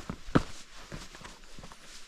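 Footsteps descending a rocky mountain path, boots striking and scuffing on stone and loose grit. The firmest footfall comes about a third of a second in, with softer steps after it.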